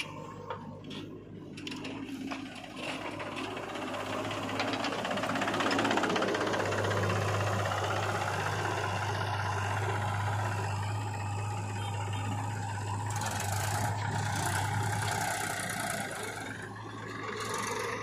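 Diesel engines of a JCB 3DX backhoe loader and a Mahindra 265 DI tractor running during sand loading. A steady low engine drone is strongest through the middle, with rattling and a few brief swells of hiss on top.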